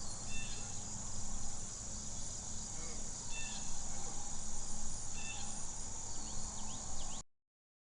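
Outdoor ambience: a steady high drone of insects with a low background rumble, and a few short chirps about every two seconds. It cuts off suddenly near the end.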